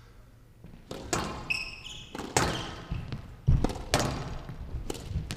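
Squash rally: a string of sharp cracks as the ball is struck by rackets and hits the court walls, with short high squeaks from court shoes on the floor.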